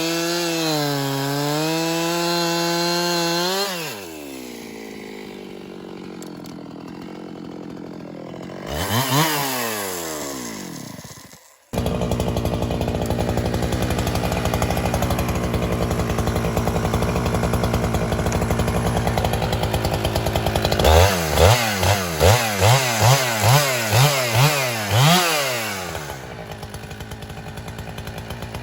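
Two-stroke chainsaw cutting into hard, dry gum, dropping back to idle about four seconds in. It revs once near the middle and cuts out for a moment, then idles steadily. Near the end comes a run of about eight quick throttle blips before it settles back to idle.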